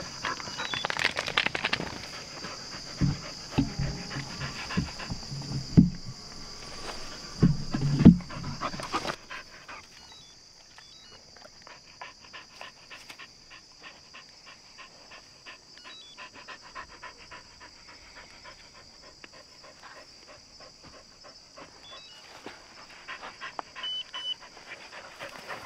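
A hunting dog panting close by. Loud knocks and rustling come through the first eight seconds or so, then it goes quieter with just the fast panting.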